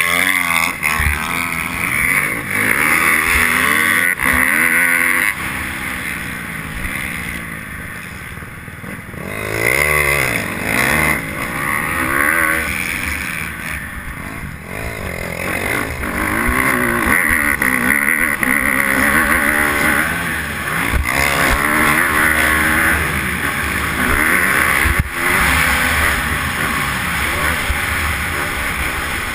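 Honda motocross bike engine revving hard and dropping in pitch again and again as the rider accelerates and shifts around the track, easing off for a few seconds about a quarter of the way in.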